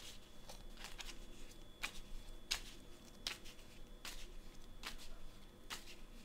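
A small deck of cards being shuffled in the hands, with a soft crisp card sound about every three-quarters of a second.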